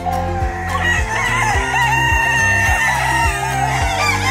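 Free-range chickens clucking, with a rooster crowing, over background music with a steady beat.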